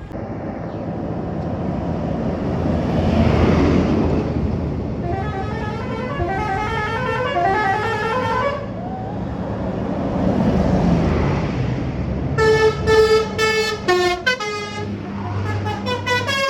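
Bus 'telolet' musical air horn sounding: a chord of tones gliding upward in pitch, then a quick run of short stuttering notes and a few more near the end. Two swells of rushing noise come in between, over a steady low engine hum.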